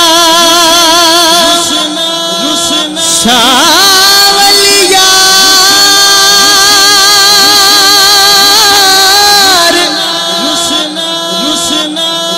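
Male singer holding long, drawn-out notes with a wavering vibrato, sung into a handheld microphone and amplified. One sustained note breaks off after about two seconds. A new phrase rises into a second long note, held for about six seconds, and another rising phrase begins near the end.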